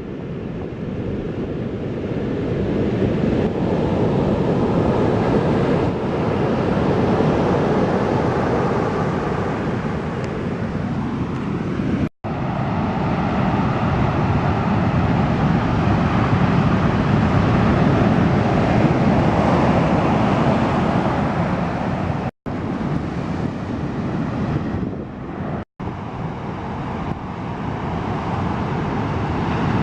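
Wind buffeting the microphone over the rush of ocean surf. The noise is loud and steady, broken by three brief silent gaps.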